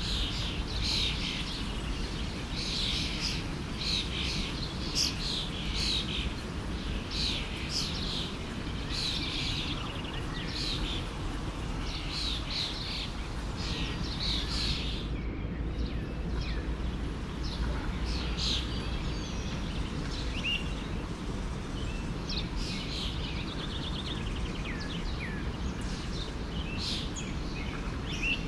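Several birds chirping and singing in short, repeated calls and trills over the steady rush of a flowing stream.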